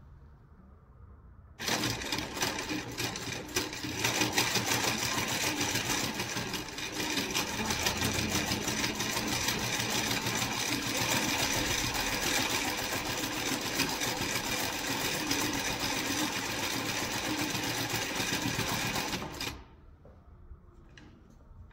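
Juita JT20U-63Z industrial zigzag sewing machine stitching through fabric at a steady fast speed; it starts suddenly about two seconds in and stops a couple of seconds before the end, followed by a couple of light clicks.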